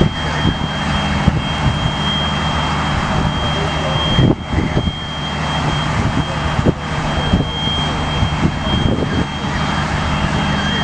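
Avro Vulcan's Olympus turbojet engines running steadily during a ground run: a dense, loud jet noise with a low rumble and a thin, steady high whine.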